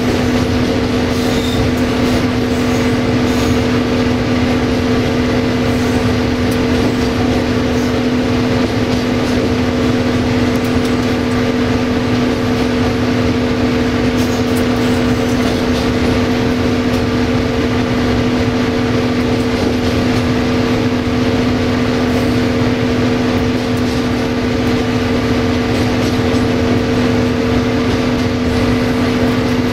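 CFR class 060-DA (LDE2100) diesel-electric locomotive heard from its cab while under way. Its Sulzer 12LDA28 diesel engine runs steadily with a constant deep hum over the rolling noise of the train on the track.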